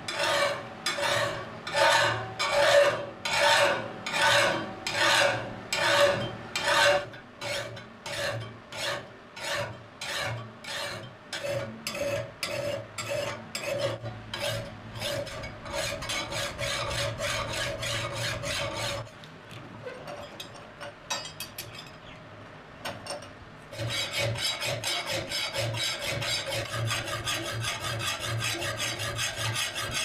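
Hand file rasping along the edge of a steel billhook blade held in a vise, reshaping and sharpening the cutting edge. It starts as long, even strokes about two a second, then goes to quicker, lighter strokes. A denser, steadier rasping takes over near the end.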